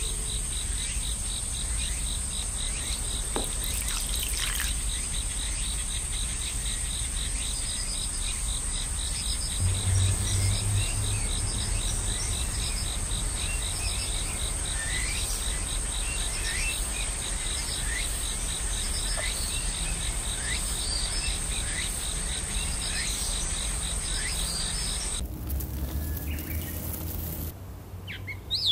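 Insects trilling steadily in a high, fast-pulsing buzz, with small birds giving many short falling chirps over a low rumble. The insect trill cuts off abruptly a few seconds before the end.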